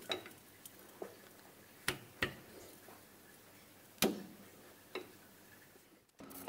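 About six sharp metallic clicks and knocks, spaced out, as a brake disc is clamped on a metal lathe between a fixture and the tailstock. Just before the end the lathe starts turning with a steady running noise.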